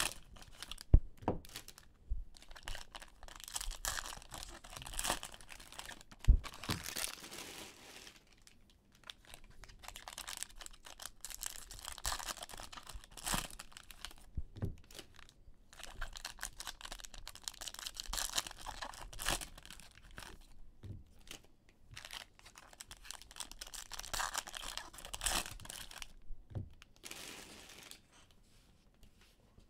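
Foil trading card pack wrappers being torn open and crinkled, in repeated bursts, with a couple of sharp knocks from the cards being handled.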